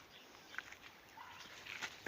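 Poultry pecking and scratching at greens: faint scattered ticks and rustles, with a short soft call about a second in.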